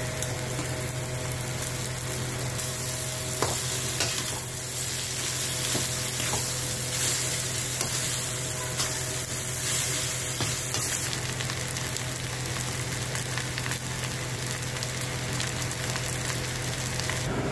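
Rice and biryani masala frying and sizzling in an aluminium kadai while a metal spatula stirs and scrapes through it, with a few sharp clicks of the spatula against the pan, over a steady low hum.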